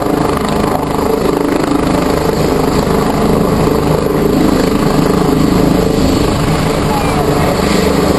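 U.S. Army UH-72 Lakota helicopter running steadily close by, its twin turboshaft engines and main rotor giving an even, fast rotor beat.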